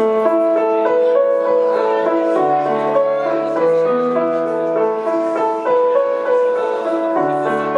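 A recorded song's slow piano introduction starts abruptly: a melody of held notes over sustained lower notes, played back over the venue's sound system.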